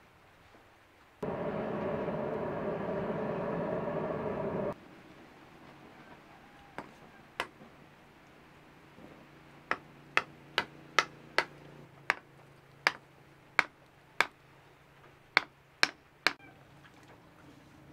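A charcoal forge's air blower runs steadily for about three and a half seconds. Later come about a dozen sharp taps, up to about two a second, as the wooden knife handle is pressed and knocked down onto the hot tang.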